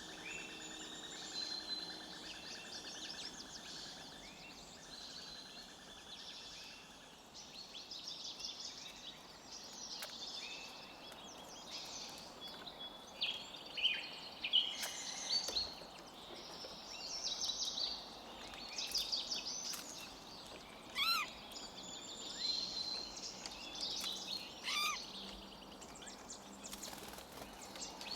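Many forest birds chirping, trilling and whistling at once over a soft steady hiss of background noise. A few louder, sharp sweeping calls stand out twice in the second half.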